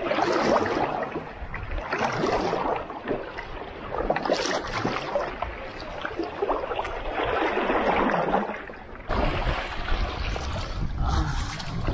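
Kayak paddle strokes splashing, with water washing along the hull; the splashing surges about every two seconds.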